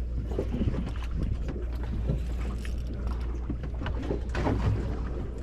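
Steady low hum of a boat's engine with water and wind noise, and scattered knocks and clatters from gear on deck.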